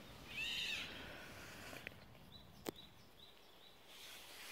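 Faint outdoor background with one short high animal call that rises and falls, about half a second in, and a single sharp click a little past the middle.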